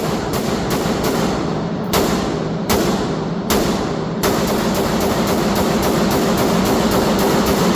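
Rapid rifle fire from an Armalite AR-10: shots a fraction of a second apart, then about four seconds in a fast, even string of about six shots a second.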